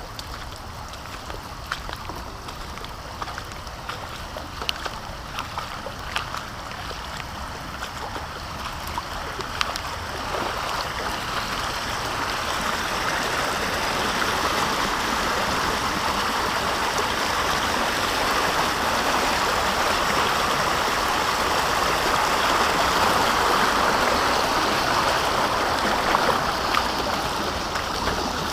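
Floodwater running fast and steady, growing louder from about ten seconds in, with a few light ticks in the first part.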